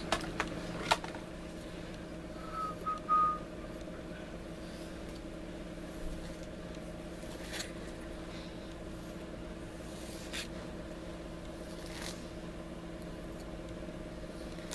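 A steady low hum of several tones under a few faint clicks, with one short high note about three seconds in.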